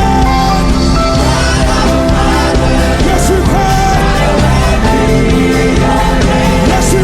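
Live church worship band playing loudly and steadily, with voices singing held notes over it.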